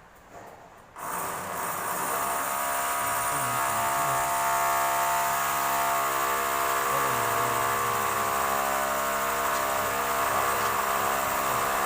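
Handheld electric power tool running steadily under load, a constant motor whine starting about a second in and holding level throughout.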